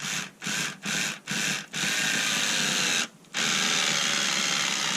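Bosch Ixo cordless screwdriver's motor and gearbox running in four short bursts, then for about a second, and after a brief pause running steadily again as it drives a screw in. The repaired gearbox now carries an extra set of gears, which the owner thinks has made it a little slower.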